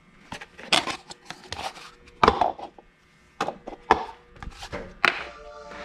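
Irregular clatter of hard objects being knocked and set down on a workbench, about half a dozen separate sharp knocks, the loudest a little over two seconds in.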